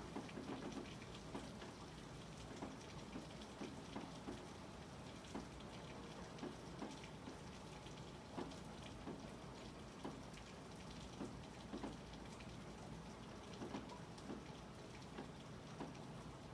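Rain falling: a quiet steady hiss with drops tapping irregularly, about one or two a second.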